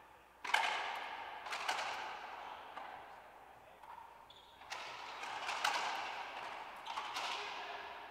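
Racquetball play: a string of sharp cracks of the ball off racquets, walls and floor, each ringing on in the echo of the enclosed court.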